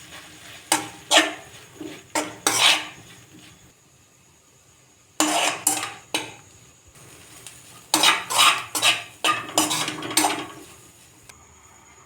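A metal utensil scraping and clanking against a cooking pan in several bursts of quick strokes, as the roti pieces are stirred and tossed, with quiet pauses between the bursts.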